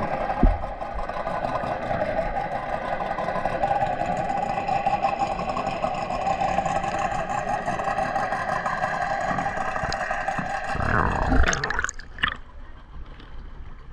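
A steady underwater hum with a whine in it, typical of a boat motor heard through the water. Near the end the camera breaks the surface, the hum stops, and quieter water lapping and splashes take over.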